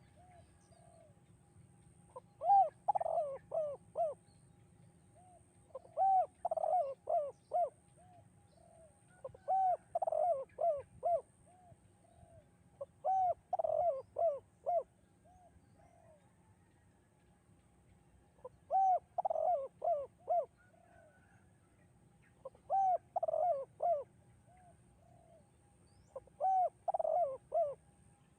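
Spotted dove (tekukur) cooing its song, a "kuk 2" type: seven phrases of several low coos each, about every three and a half seconds.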